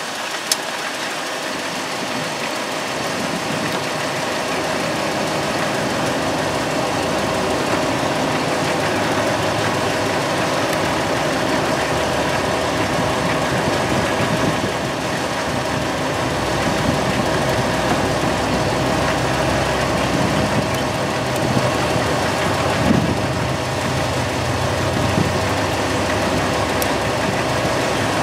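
An engine idling steadily, with a sharp click about half a second in.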